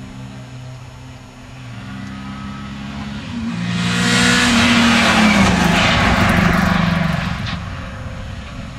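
A rally car's engine approaching under hard acceleration, passing close at full throttle and fading away. The sound is loudest from about four to seven seconds in.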